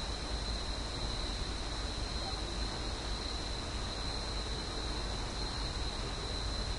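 Steady hiss with a constant high-pitched whine, with no distinct events.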